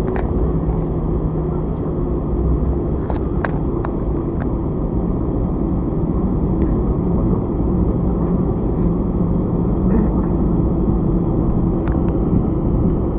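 Steady cabin noise inside an Airbus A320 taxiing: a low rumble of the engines at idle and the aircraft rolling, with a faint steady hum and a few light clicks.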